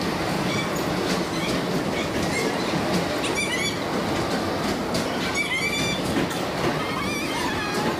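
Steady rolling rumble of an amusement park ride in motion, with brief high wavering shrieks about three and a half, five and a half and seven seconds in.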